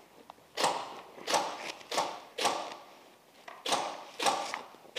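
Airsoft guns firing single shots: six sharp pops, spaced about half a second to a second apart, with a pause in the middle.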